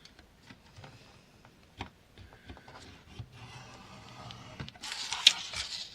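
Vellum paper handled on a plastic envelope punch board while scoring: light taps and clicks, then a scraping rustle that grows louder near the end, with one sharp click.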